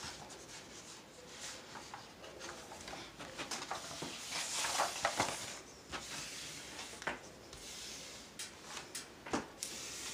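Rustling and rubbing of a large diamond-painting canvas sheet as hands shift and smooth it flat. The rustle swells about halfway through, with a few light taps and clicks scattered through it.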